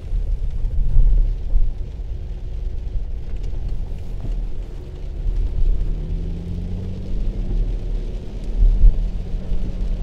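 Car cabin noise while driving: a steady low engine and road rumble. About halfway through the engine note climbs as the car picks up speed, then holds steady. There are a couple of louder low thumps.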